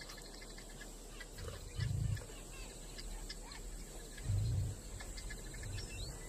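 Woodland ambience of small bird calls and insect chirps. Two short, low sounds of unknown origin stand out, about two seconds in and again at about four and a half seconds, with a fainter one near the end.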